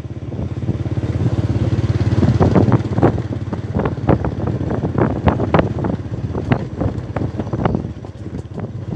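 Motorcycle engine running steadily while riding along a rough mountain road, with wind buffeting the microphone in irregular gusts.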